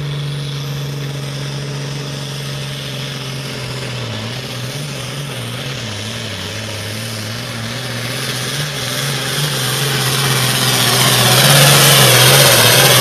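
Modified hot farm tractor engine running hard at a steady, high pitch under full load while pulling the sled. A high whine climbs in pitch as the sound grows louder over the last five seconds.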